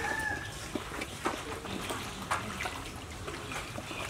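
Raw chicken pieces, potatoes and spice paste in mustard oil being mixed by hand in an aluminium pot: wet squishing with scattered light knocks of the pieces against each other and the pot.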